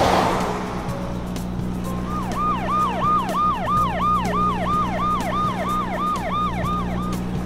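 Siren sound effect: a fast repeating falling wail, about two and a half sweeps a second, starting about two seconds in and stopping shortly before the end. It follows a whoosh at the start and sits over a steady low hum.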